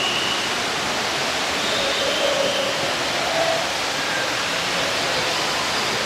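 Steady rush of an indoor waterfall's falling water.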